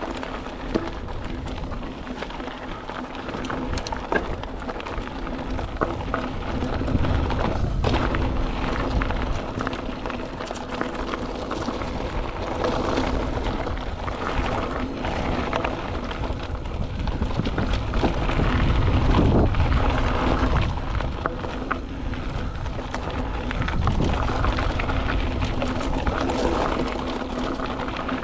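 Mountain bike riding fast down dirt singletrack: wind buffeting the microphone over the rolling of tyres on dirt, with a steady hum and occasional knocks and rattles from bumps in the trail, loudest a little after halfway.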